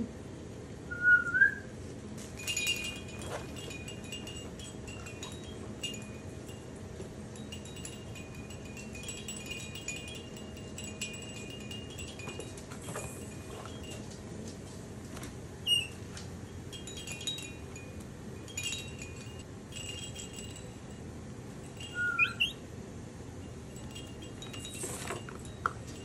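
Baby spider monkey giving a few short, high, rising chirps: one about a second in, another in the middle and a pair near the end. Between the chirps there is soft, chime-like tinkling, and a faint steady hum runs underneath.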